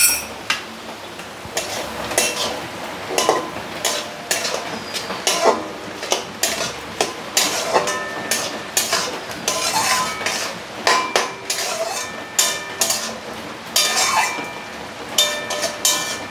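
Metal spatula scraping and clinking against an aluminium kadai as a wet ash-gourd mixture is stirred, in repeated uneven strokes about once or twice a second, some with a short metallic ring.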